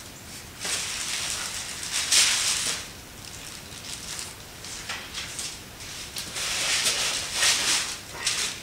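Plastic wrapping crinkling and rustling as plastic-wrapped drill press parts are handled and lifted out of foam packing, in two longer spells with smaller rustles between.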